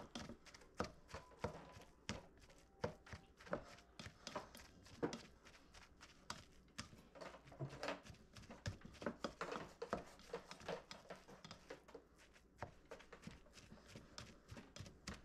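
Spatula tapping and scraping against a bowl while shredding cooked fish: quick, irregular clicks and knocks, several a second.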